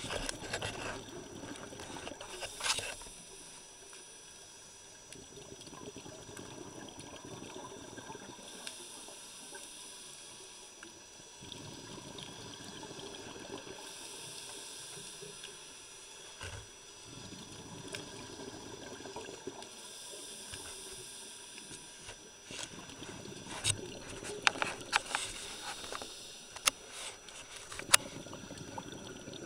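A scuba diver's regulator breathing underwater: rumbling exhaled bubbles lasting a few seconds alternate with hissing inhalations. A few sharp clicks come near the end.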